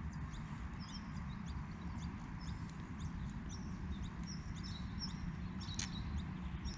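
Small birds chirping, many short, irregular high notes, over a low steady background rumble. A single sharp click comes near the end.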